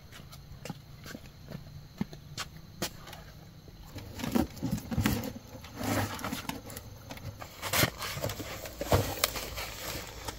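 Scattered knocks, scrapes and rustling as ears of corn and a woven basket are handled and set down.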